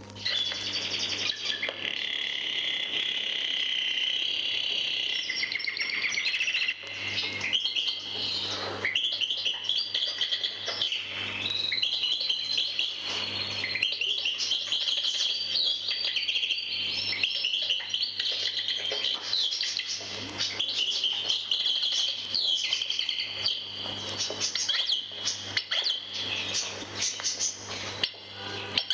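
A goldfinch singing a long, continuous run of rapid twitters, trills and chirps. A steady low hum from the old vinyl recording runs under it.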